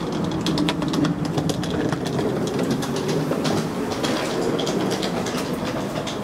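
A train running through the station: a steady rumble with rapid clattering clicks.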